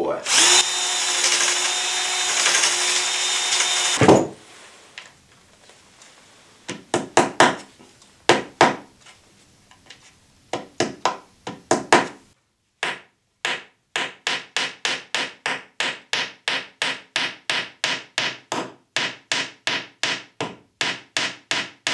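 Cordless drill boring a hole through a chipboard cabinet side, running steadily for about four seconds. Then a hammer knocks a wooden dowel into the hole: a few scattered blows at first, then a steady run of about three light blows a second.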